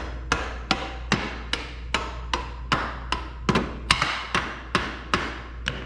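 A hammer tapping a part, a steady run of about fifteen sharp strikes at roughly two and a half a second, each with a short ring.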